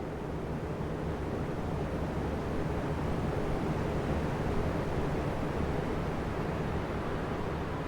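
Three oscillating electric fans running together: a steady rush of moving air with a low motor hum underneath. The level swells slowly to a peak about halfway through and then eases off as the fan heads sweep.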